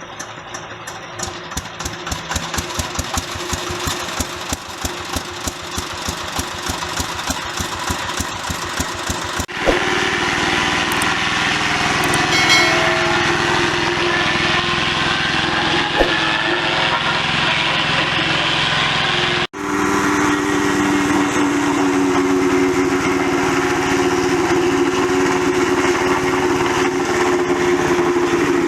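Wood chipper's engine running. In the first third it fires in rapid, even pulses; after that the sound is a denser, steady running noise with a steady hum, and it changes abruptly twice along the way.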